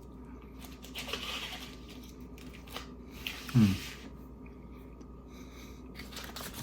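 A person chewing a bite of turkey-and-beef meat stick, with soft crunching and mouth sounds, and one short falling "hmm" about three and a half seconds in.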